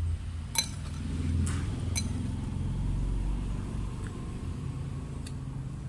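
Metal spoon and fork clinking against a ceramic soup bowl a few times while noodles are lifted out, over a low steady rumble that swells around the middle.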